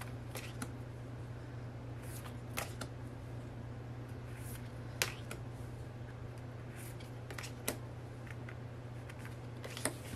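Polaroid-style photo cards being handled and flipped through: scattered light taps and clicks, about ten spread unevenly, over a steady low hum.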